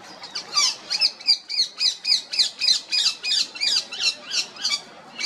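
Female rose-ringed parakeet calling: a fast run of high-pitched squawks, each sweeping down in pitch, about three a second.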